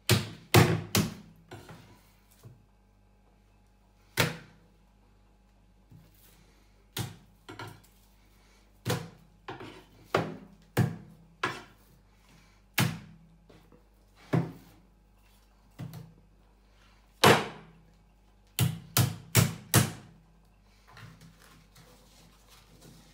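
Repeated sharp knocks of a large kitchen knife striking meat on a wooden cutting board, about twenty irregular blows with a quick run of four or five near the end.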